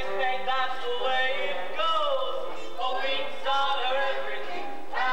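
Live stage-musical song-and-dance number: a pit orchestra plays under singing, without a break.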